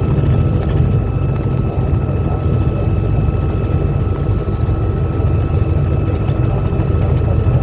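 Helicopter in flight, heard from on board: a steady low rotor drone with a thin, constant whine above it.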